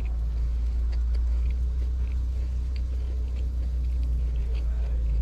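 A steady low rumble runs throughout, with faint, scattered small clicks of someone chewing a mouthful of bread-roll sausage sandwich.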